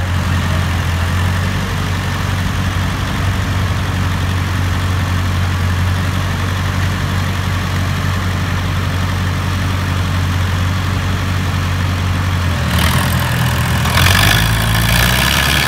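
Two diesel tractor engines, a Ford 3600 and a Sonalika, running hard under full load as they pull against each other in a tug-of-war, with a steady low drone. About 13 seconds in, and again a second later, the sound grows louder and harsher as the engines strain and the front wheels start to lift.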